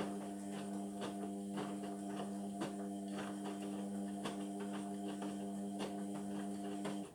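Indesit washing machine running mid-cycle: a steady electric hum with irregular light clicks and knocks. The hum cuts off suddenly near the end.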